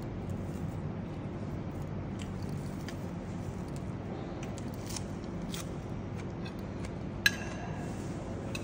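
Small clicks and crunching of someone eating and handling raw vegetables at a table, then a metal spoon clinks once sharply against a ceramic plate, briefly ringing, about seven seconds in. A steady low hum runs underneath.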